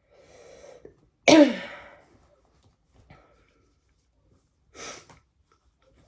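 A woman with a cough draws a breath, then gives one loud, sudden cough that drops in pitch and dies away within about a second. A shorter, quieter breathy burst follows near the end.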